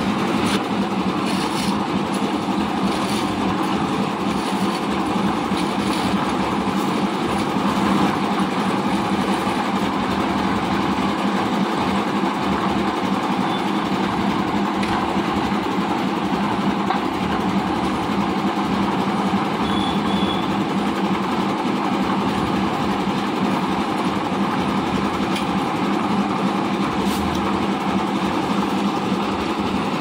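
Lift-type concrete mixer machine running steadily with a continuous mechanical drone, and a few faint clicks and scrapes over it.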